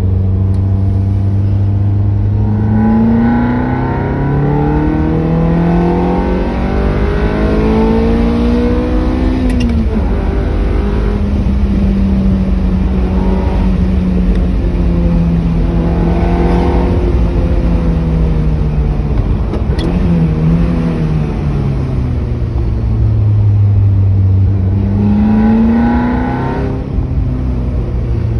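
Ferrari F355's 3.5-litre V8 on standard exhaust, heard from inside the cabin, accelerating hard. The revs climb for several seconds, drop at a gear change about ten seconds in, then rise and fall through further shorter pulls and lifts, with a last strong climb near the end.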